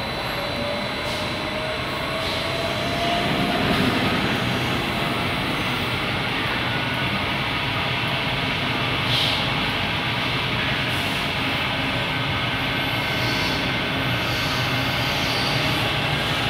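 Centrifugal de-oiling dryer running, its stainless steel basket spinning with a steady mechanical hum. A faint whine rises slowly in pitch over the first few seconds as it speeds up.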